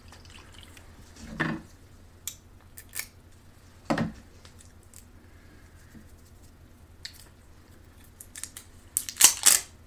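Hands working at the cap and plastic seal of a small hot sauce bottle: scattered short clicks and scrapes, with a louder cluster of crackling handling noise near the end.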